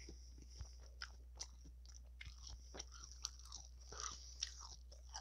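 Close-miked chewing: a mouthful of food chewed with scattered soft crunches and small mouth clicks, a few a second.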